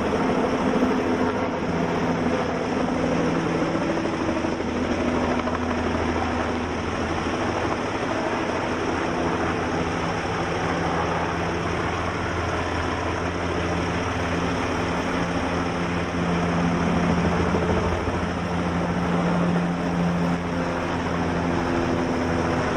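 Steady engine drone with a low, even hum, without a break.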